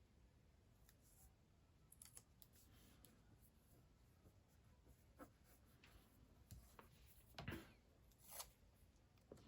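Faint paper sticker handling on a planner page: scattered light rustles and taps, with two louder brushing swishes near the end.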